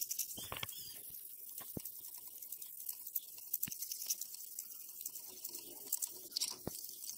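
A pad rubbed back and forth by hand over a steel cleaver blade, hand-polishing the metal: a scratchy rubbing with a few sharp ticks.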